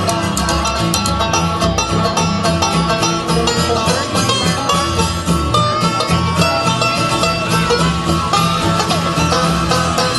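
Upbeat bluegrass-style music with banjo and guitar picking over a steady bass beat.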